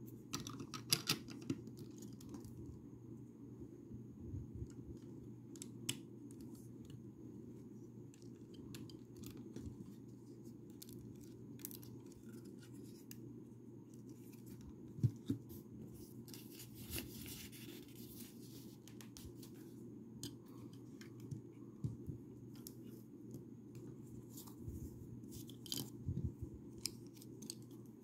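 Plastic Lego bricks being handled and pressed together: scattered sharp clicks and small taps, with a longer rustle of pieces about two-thirds of the way through.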